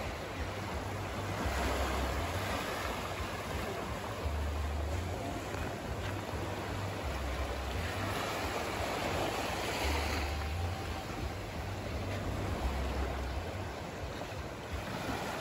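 Small sea waves lapping and washing on a sandy shore, a steady wash that swells and eases gently.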